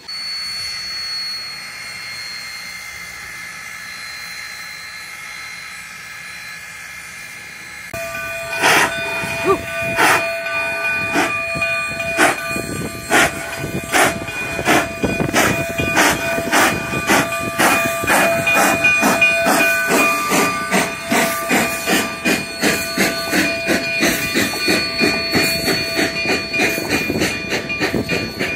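Narrow-gauge steam locomotive No. 484, a K-36 2-8-2, pulling its train away from a stop. A steady hiss of steam runs for the first eight seconds. Then the exhaust chuffs start suddenly, loud and sharp, and quicken steadily from about two a second to about three a second as the train gathers speed.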